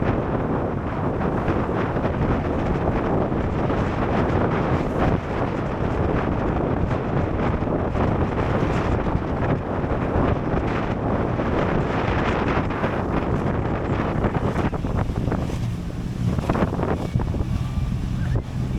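Strong wind buffeting the microphone, a loud, steady rumbling rush with the sea's wash underneath. A faint, steady low hum comes in near the end.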